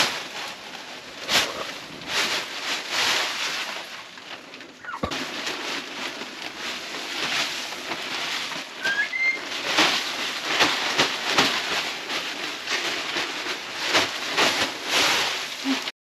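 Wood shavings being shaken out of a plastic bag onto a coop floor: repeated rustling swishes of falling shavings and crinkling bag. A couple of short chirps come about nine seconds in.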